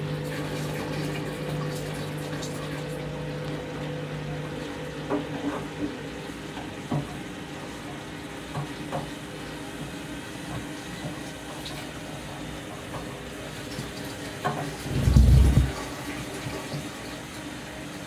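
Candy front-loading washing machine on its delicate spin: a steady motor hum with water swishing in the turning drum and a few small clicks. About fifteen seconds in comes one loud low thump, the loudest sound.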